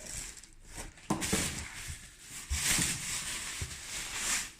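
Rustling and handling of shipping packaging, with a few soft knocks as the laptop's box is handled.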